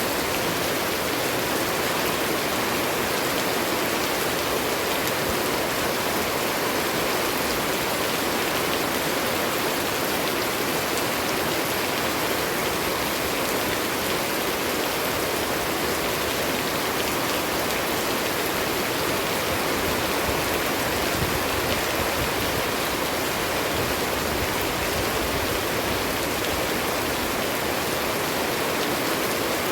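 Steady rain falling, an even hiss that runs on without a break.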